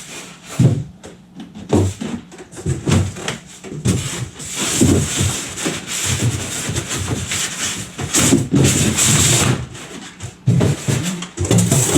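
Polystyrene foam packing being pushed back into a cardboard box, a run of irregular scrapes, rubs and knocks of foam against cardboard, busiest in the middle stretch.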